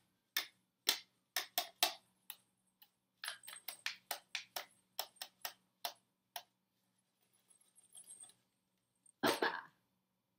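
Red plastic cups being handled and knocked together, a quick run of sharp plastic clicks. Near the end comes one louder knock as the cups are set down upside down on a foam play mat.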